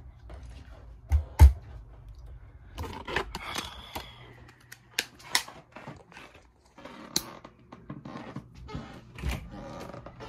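A series of knocks, clicks and rattles, with two heavy thumps about a second in.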